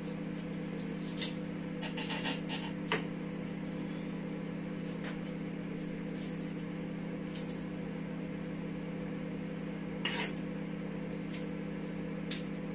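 A steady low electrical appliance hum, with a few light clicks and taps of a small kitchen knife as garlic cloves are peeled and cut by hand: a cluster about two to three seconds in and another near ten seconds.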